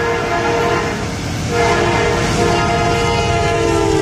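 Locomotive air horn sounding a chord, breaking off about a second in and coming back louder, its pitch sliding down near the end as it goes by, over the rumble of the train on the rails.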